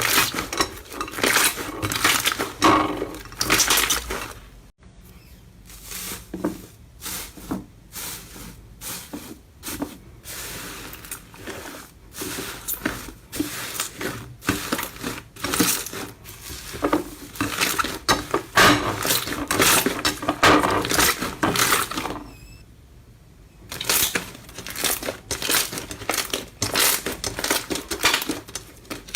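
Slime being squeezed and worked by hand, a dense stream of wet clicks, crackles and pops that drops away briefly twice.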